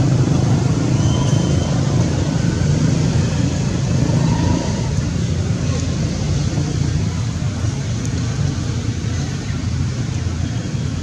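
Steady low outdoor rumble, with a few faint short chirps about a second in and again around four and a half seconds.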